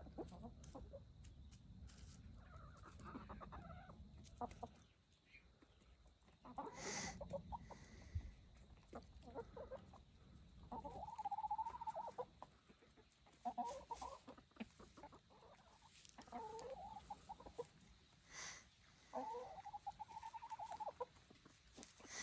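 Ameraucana hens clucking softly as they forage, with several longer drawn-out calls in the second half.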